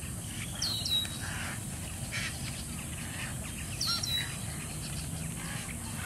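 A colony of white ibises and egrets calling from the trees: a running chatter of short, rough calls. Two sharp whistled notes from another bird cut through about a second in and again about four seconds in, each dropping in pitch and then levelling off.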